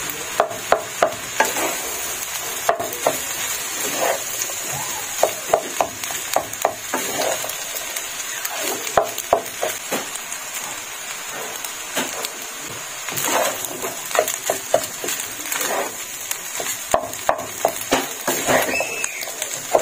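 Fried rice sizzling in a nonstick pan while a wooden spatula stirs and tosses it, with runs of quick knocks and scrapes of the spatula against the pan over a steady sizzle.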